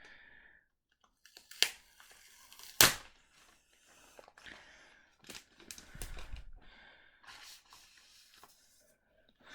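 Protective plastic wrap being peeled off a new keyboard and crinkled in the hands, with irregular rustling and two sharp crackles, the louder one about three seconds in.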